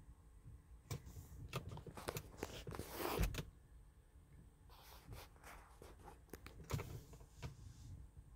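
Faint rustling and scattered small clicks from a hand-held phone being handled in a quiet room, with one louder breathy rustle about three seconds in.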